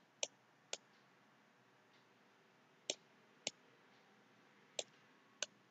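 Computer mouse button clicking: about six sharp single clicks at uneven intervals, against a near-silent room.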